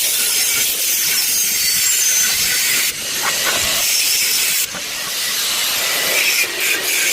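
Electric arc welding: a loud, steady crackling hiss that breaks off briefly about three seconds in and again near five seconds, as the arc is stopped and struck again.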